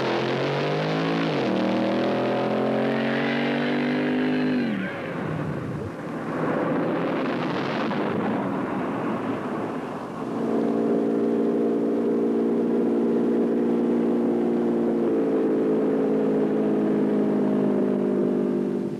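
The 426 Hemi V8 of a drag-racing pickup accelerating hard, its pitch rising, breaking at a gear change, rising again, then dropping away about five seconds in. A rushing noise follows. From about ten seconds in there is a steady, unbroken drone that shifts slightly in pitch near the end.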